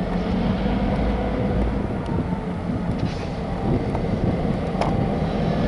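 Diesel freight locomotive approaching, a steady low engine rumble.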